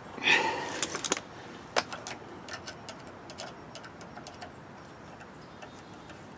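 Small sharp clicks and taps of pliers and a hose clamp being worked onto a rubber fuel line at a small engine's carburetor, after a brief louder scuffle at the start; the clicks thin out in the second half.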